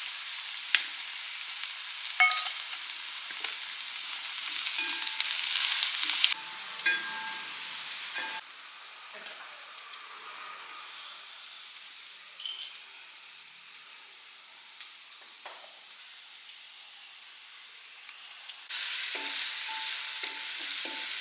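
Sliced onions, green chillies and curry leaves sizzling in hot coconut oil in a metal uruli, with ginger-garlic paste just added and being stirred in. There are a few sharp knocks. The sizzle drops to a faint hiss after about eight seconds and comes back loud near the end.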